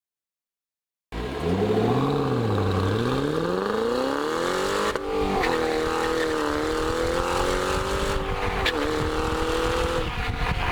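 Ford Mustang Shelby GT500's V8 exhaust cutting in about a second in, revving up and down, then pulling up through a gear in a rising note, shifting about five seconds in and running on fairly steadily, with a brief dip near the end.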